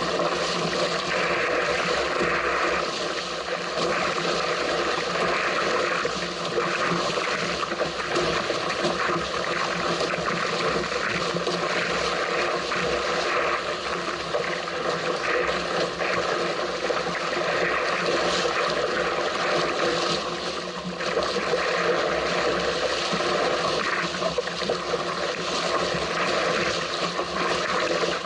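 Strong wind rushing over the microphone and water hissing and splashing past the hull of a small sailing craft as it sails at speed. Steady, dense noise throughout.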